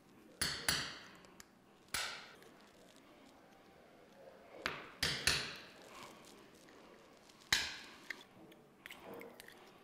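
Ball peen hammer striking an awl set against a CV boot clamp on an ATV drive axle, driving the clamp loose: about seven sharp strikes at uneven intervals, each ringing briefly, with a few lighter taps near the end.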